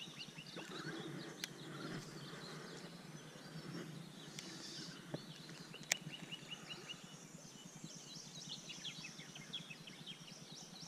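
Faint birdsong: runs of short chirps repeated quickly in trills, overlapping throughout, with a couple of sharp clicks, the clearest about six seconds in.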